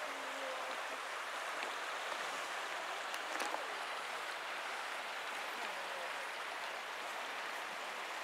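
Shallow river running over a pebble bed: a steady rush of flowing water.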